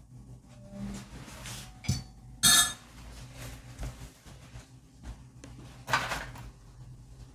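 Kitchen utensils and dishes clinking and knocking: a sharp ringing clink about two and a half seconds in, with lighter knocks before it and another near six seconds.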